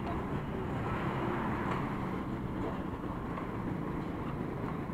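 Steady road traffic noise from trucks and other vehicles passing, a continuous low rumble with no single sound standing out.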